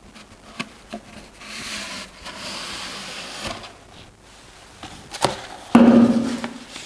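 Rolled paper sheets slid out of a cardboard mailing tube and unrolled, giving a papery rustle with a few light knocks from the tube. A short, louder sound comes near the end.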